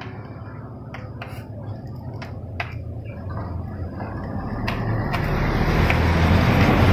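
Road traffic noise with a low hum, growing louder toward the end as a vehicle comes closer. A few light clicks from bamboo sate skewers being handled come in the first half.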